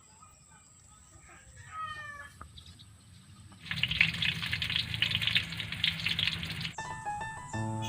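Faint chirping calls, then a loud, steady hissing rush for about three seconds, which cuts off as music begins near the end.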